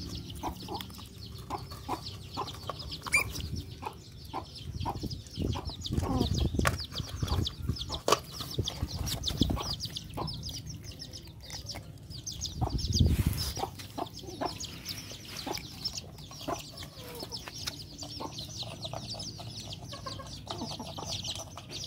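Chickens clucking with a steady high chirping, over irregular clicks and crunches of puppies chewing food in a metal bowl.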